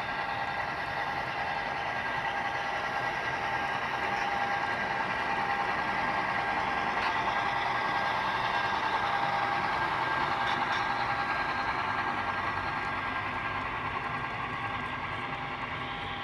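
Model Santa Fe F-unit diesel locomotives and their passenger cars running past on model track: a steady mechanical hum with a held tone, growing louder toward the middle and fading near the end.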